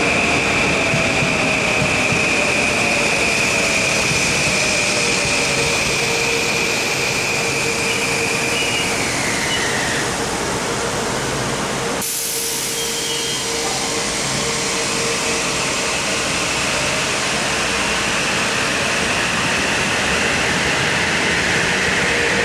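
Electric commuter train running along a platform, a steady high motor whine over rail rumble that falls in pitch as the train slows. After a sudden cut, another train's whine rises as it gathers speed near the end.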